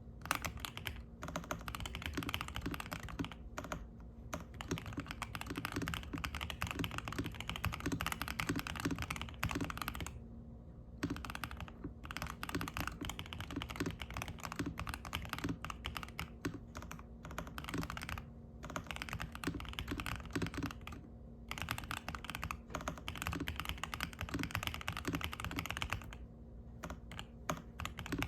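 Typing on a Zuoya GMK67 mechanical keyboard with stock DK Roastery Iced Latte switches, a polycarbonate plate, a fully foamed and tape-modded plastic case and ABS keycaps, resting on a desk mat. The keystrokes come at a slower, steady pace, with a few short pauses, over a faint low hum.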